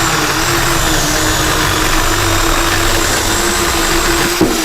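Portland 14-inch 9-amp corded electric chainsaw running at full speed with a steady whine, with a sharp click near the end.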